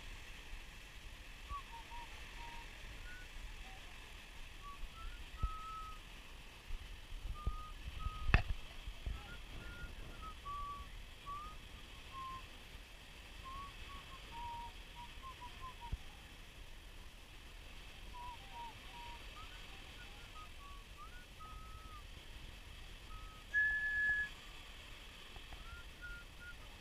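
Open beach ambience: a faint low rumble with many short, high chirps or whistles scattered throughout, a single sharp click about eight seconds in, and one brief steady high whistle-like tone near the end.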